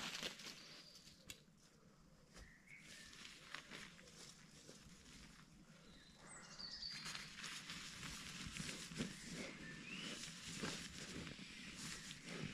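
Woodland birds giving a few short chirps over faint rustling and handling noises, which grow a little louder about halfway through.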